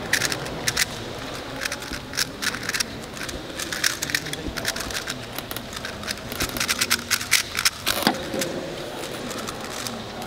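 Rapid irregular clicking of a 3x3 speedcube being turned, in fast runs of turns with short pauses between them.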